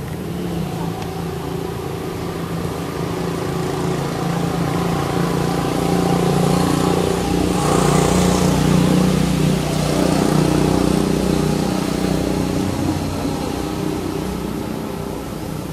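A motor vehicle's engine running steadily, growing louder toward the middle and then fading, as if passing by.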